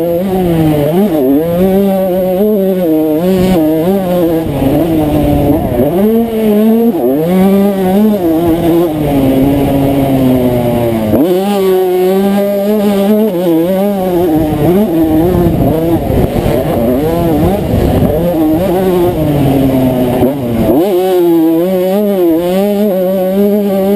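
1992 Honda CR125's single-cylinder two-stroke engine under hard riding, revving up and falling back over and over as the throttle is worked and the gears are changed, with a few sudden drops in pitch.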